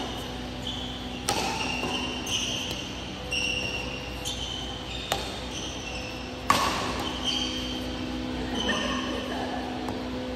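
Badminton rally: rackets striking the shuttlecock in sharp cracks, about one every one to two seconds, the hardest hit about two-thirds of the way through. Short squeaks of shoes on the court floor come between the hits, over a steady hum.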